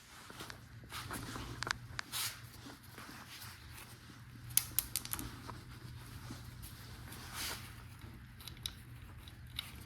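Scattered light clicks and knocks, with two short rustling swells, over a faint steady low hum.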